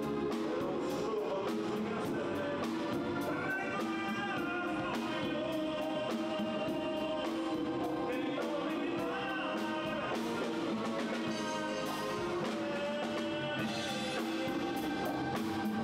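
Live band music with a man singing lead into a handheld microphone, backed by saxophones and a drum kit.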